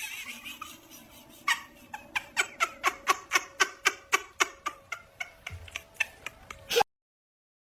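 A cat giving a rapid run of short, pitched calls, about four a second, for several seconds before the sound cuts off suddenly.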